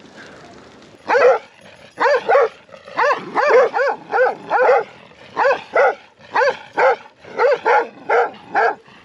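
Large shepherd dogs barking over and over as they run alongside touring bicycles, starting about a second in at roughly two or three barks a second.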